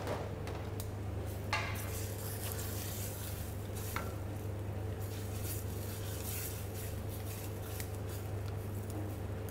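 Wooden spoon stirring a simmering cream sauce in a stainless steel pan, scraping and now and then knocking against the pan, with sharper knocks about one and a half and four seconds in. A steady low hum runs underneath.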